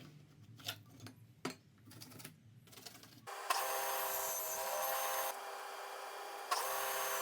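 A few light handling clicks, then a power tool starts abruptly about three seconds in and runs with a steady whine, cutting the back corners off a plywood mounting plate; it eases briefly in the middle and then bites again.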